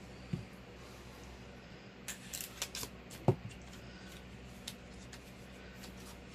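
Clicks and light knocks of an eyeshadow palette being handled on a tabletop, with a sharper knock about three seconds in, over a low steady hum.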